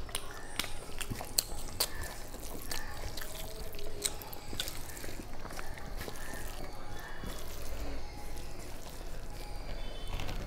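Fingers mixing cooked rice with chicken curry gravy on a steel plate: soft wet squishing with scattered small clicks throughout.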